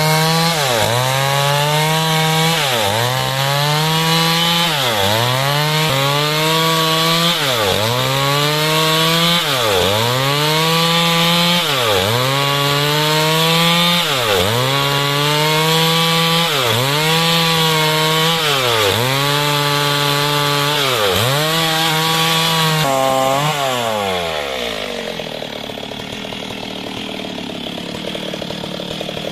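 Two-stroke chainsaw, tagged as a Stihl, held at high revs while cutting through timber, its pitch dipping and recovering in a steady rhythm as the chain bites. About 23 seconds in, the cutting noise stops and the engine winds down to idle.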